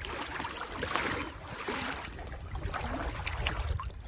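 Water lapping and trickling, with a low wind rumble on the microphone and a few light clicks.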